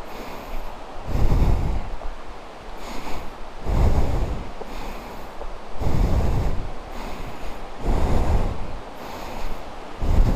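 Heavy breathing close to the microphone, coming in loud, rough breaths about every second or so, with a low rumble on each breath.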